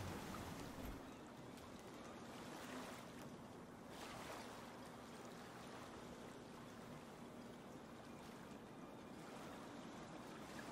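Faint wash of water, even and steady, with a faint low hum running under it.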